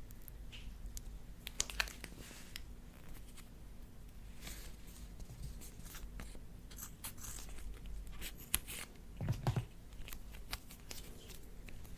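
Slime being worked by hand: a run of small sticky clicks and crackles, with one duller, louder squelch or knock about nine seconds in.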